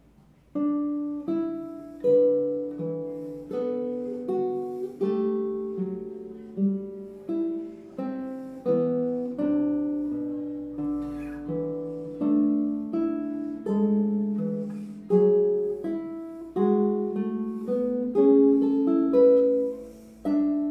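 Nylon-string classical guitar played solo with the fingers: a slow run of plucked notes and chords, each left to ring and fade, starting about half a second in.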